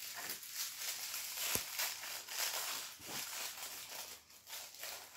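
A thin wrapper crinkling and rustling as small hands tear it open around a tiny doll accessory, with one sharp click about a second and a half in.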